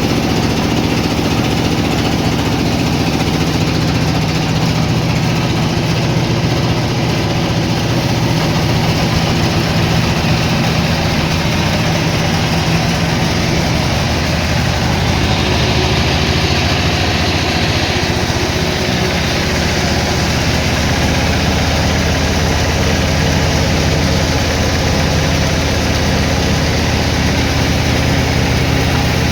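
Sawmill machinery running with a steady, heavy engine drone; about halfway through a higher-pitched hiss rises for a few seconds, then drops back.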